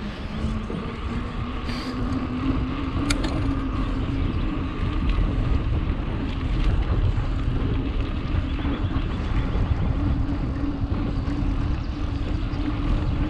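Wind rushing over the microphone of a moving bicycle on an asphalt road, with a steady tyre hum that rises slightly in pitch and grows louder over the first few seconds. A single faint click about three seconds in.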